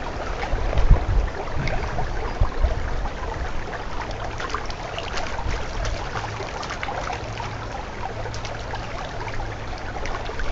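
Narrow, shallow stream running steadily, with a few low bumps in the first few seconds as someone washes in it.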